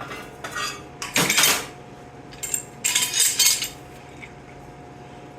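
Heavy-duty steel welding F-clamps being handled against steel, clanking metal on metal several times with a ringing edge. The loudest clank is a little over a second in, and a quick cluster follows about three seconds in.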